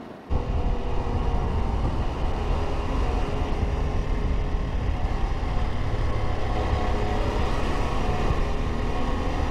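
Motorcycle engine running steadily at road speed under heavy wind rush. It starts suddenly about a third of a second in.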